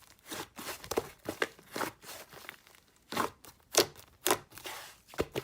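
Slime being squeezed and worked by hand, making irregular crackles and sharp pops, with a few louder snaps in the second half.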